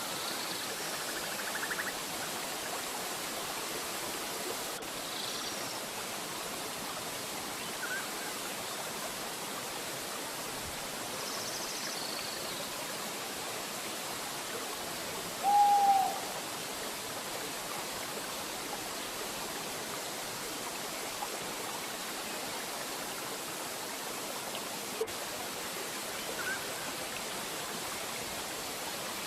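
Waterfall rushing steadily, with a few faint, short bird calls scattered through it and one louder, short, low bird call about halfway through.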